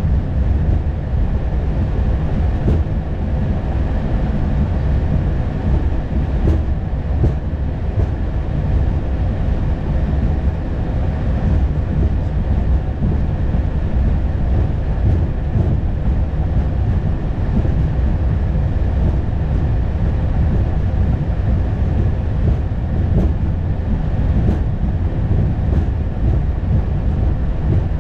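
Steady low rumble inside an Airbus A220 cockpit as the aircraft rolls on the ground, its Pratt & Whitney geared turbofans running, with a few faint steady tones over it and scattered light clicks.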